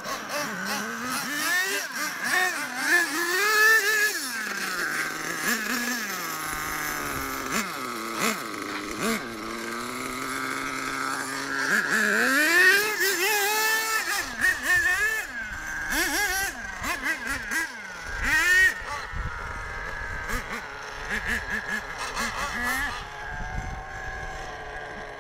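Small nitro RC truck engines running at high pitch, repeatedly revving up and easing off as the trucks are driven, with rising and falling whines throughout and the loudest revs about three, twelve and eighteen seconds in.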